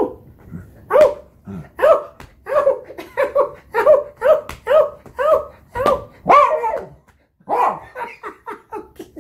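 A dog barking excitedly in a rapid string of short, sharp barks, about two to three a second, with a brief pause near the end. It is play barking, set off by its owner patting his own leg in a game the dog takes for play.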